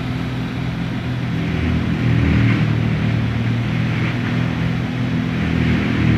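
An engine running steadily with a low, even hum that grows a little louder about two seconds in.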